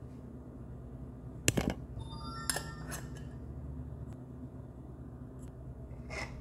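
Kitchenware clinking: a sharp knock about a second and a half in, then a clink that rings briefly, and another click near the end, over a steady low hum.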